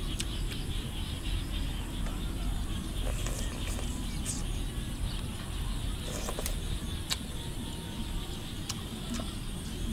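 Metal spoon clicking against a ceramic soup bowl a few times while eating, over a steady low rumble.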